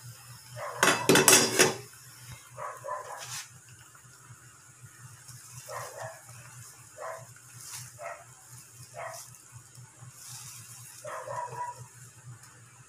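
A dog barking several times in short single barks, with the loudest sound about a second in, over a steady low hum.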